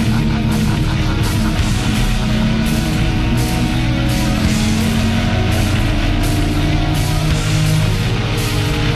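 Loud heavy rock music with a steady drum beat.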